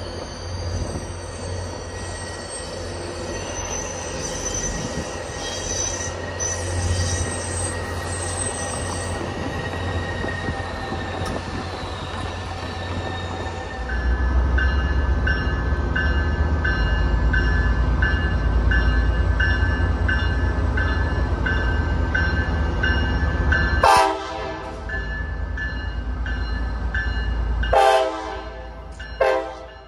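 A diesel-hauled train passes with its wheels squealing faintly. About halfway through, the engine grows louder and a bell starts ringing steadily. The horn then sounds two short blasts, a few seconds apart, near the end.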